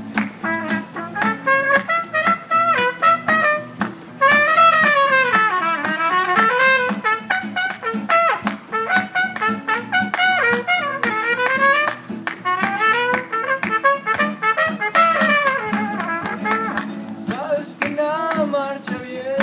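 Trumpet playing an instrumental solo melody in rising and falling phrases over a steadily strummed acoustic guitar.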